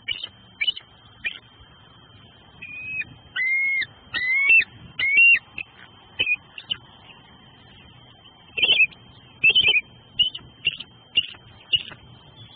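Adult bald eagle calling: high, thin chirping notes, a few longer slightly rising whistled notes a few seconds in, then another quick run of chips near the end.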